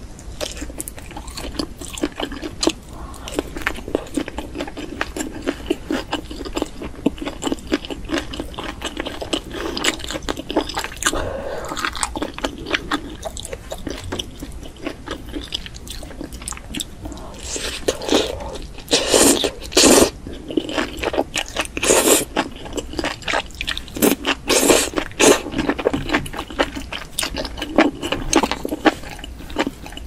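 Close-miked chewing and crunching of spicy enoki mushrooms: a steady run of wet clicks and crackles from the mouth, with louder, longer bursts in the second half.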